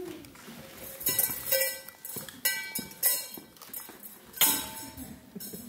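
Music cue built on a beat of sharp, ringing metallic hits, starting about a second in.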